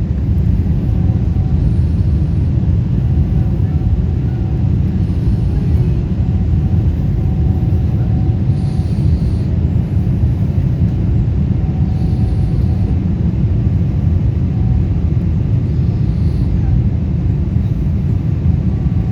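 Airbus A340's engines and rushing air: a steady low rumble that holds even throughout, with a faint thin tone coming and going.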